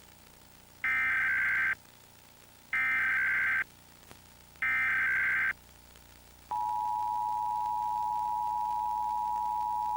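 Emergency Alert System tones: three short, screechy bursts of digital SAME header data about a second apart, then about six and a half seconds in the steady two-tone EAS attention signal (853 and 960 Hz) starts and holds.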